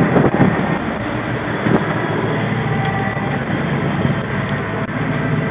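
Sport-fishing boat's engine running steadily, with water washing along the hull and wind on the microphone.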